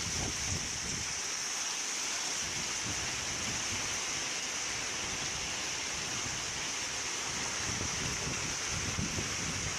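Wind outdoors: a steady hiss, with uneven low gusts buffeting the microphone.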